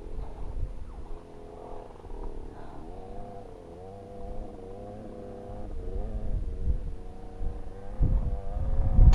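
Dirt bike engine running at low revs while riding a rough dirt trail, its note wavering up and down with the throttle. There are thumps from the bike over bumps and a low rumble of wind on the microphone that grows louder near the end.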